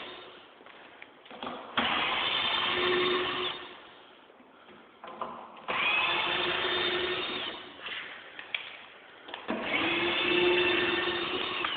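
Power drill running in three bursts of about two seconds each, its motor spinning up at the start of each, driving screws to board up a room. Small clicks and knocks fall between the bursts.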